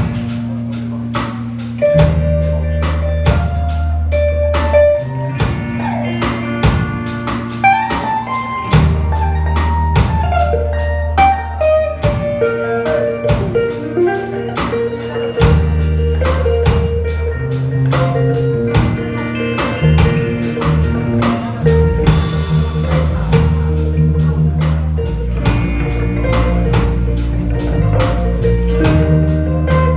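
Live band playing a slow blues instrumental passage: a guitar lead melody over sustained bass notes and a drum kit keeping a steady beat.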